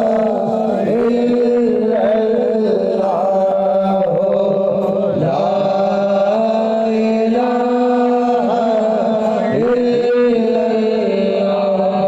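Naat, an Islamic devotional chant: a voice carries a wavering, drawn-out melody over a steady held drone, with no clear words.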